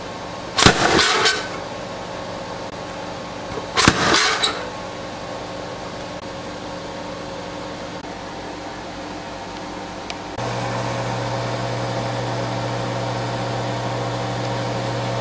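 Two short crunching cuts, about three seconds apart, as an onion is pushed through the blades of a plastic onion wedger. From about ten seconds in, a Breville Smart Oven Air convection oven runs with a steady low hum.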